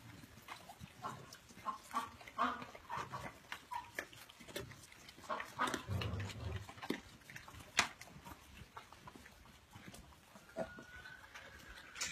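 Animals eating chopped vegetables from a metal tray: irregular crunching and clicking of chewing, with a pig giving low grunts a few times, the loudest about six seconds in.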